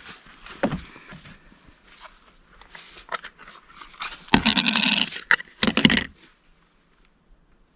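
Two loud, rough animal calls, the first about a second long and the second shorter, after a few scattered small knocks.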